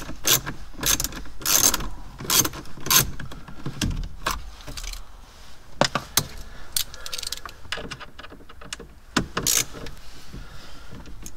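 Small hand socket ratchet clicking in short, irregular runs as it backs out the screws holding a car radio in the dashboard.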